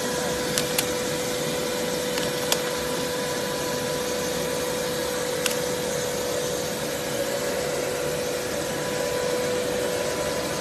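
Biodegradable blown-film extruder line running: a steady whirring machine hum with a constant high tone, and a few sharp clicks in the first half.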